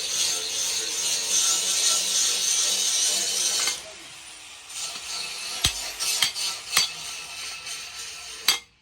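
Steady, harsh rasp of an abrasive tool working the steel of a forged leaf-spring hoe, cutting off suddenly a little under four seconds in. It is followed by several sharp, light knocks and clinks.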